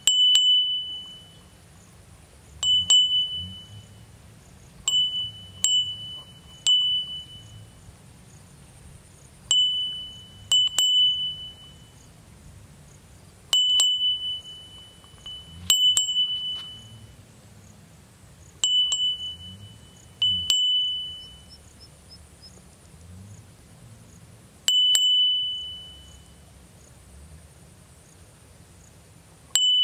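A small bell-like ding struck about a dozen times at irregular intervals, each a single high ringing tone that dies away within a second, over a faint steady high whine.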